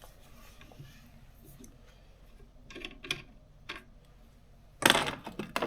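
Small metal parts handled on a workbench: a few light clicks and taps, then a louder clatter of several knocks near the end as the compressor's pressure regulator and its fittings are set down and moved about.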